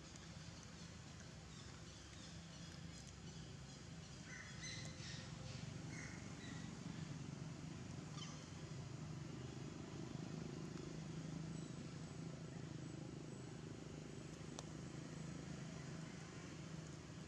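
Quiet outdoor ambience: a steady low hum with a few short, faint bird chirps around four to six seconds in and a single faint click later on.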